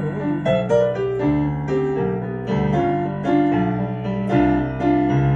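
Keyboard (digital piano) playing a 12-bar blues in G: chords over moving bass notes, filling the rest between two sung lines.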